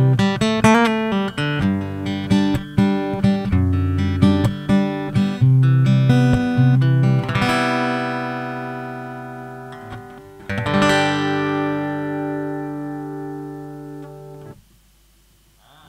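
Acoustic guitar played solo: a quick fingerpicked phrase over bass notes, then two strummed chords, each left to ring out, the second damped suddenly near the end.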